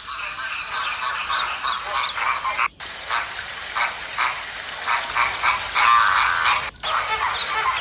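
A flock of flamingos calling: many short calls overlapping in a dense, continuous chorus, broken off for an instant twice.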